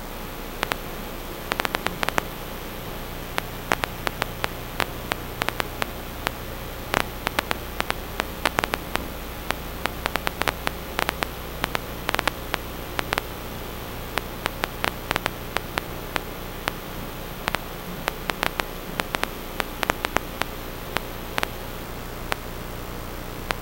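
Steady hiss of static with a faint low hum, broken throughout by frequent, irregular sharp clicks and crackles.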